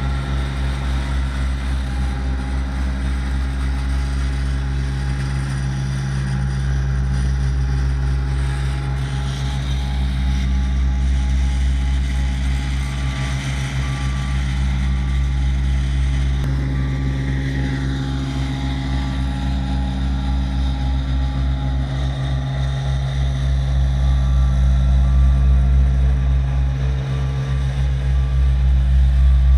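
Small ride-on tandem vibratory road roller's diesel engine running steadily at a constant speed. Faint, regular short beeps repeat over it through the second half.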